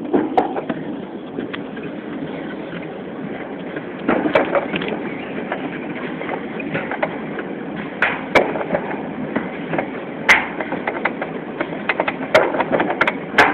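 Summer toboggan sled running down a steel trough track: a steady rolling rumble, with scattered sharp knocks and clacks.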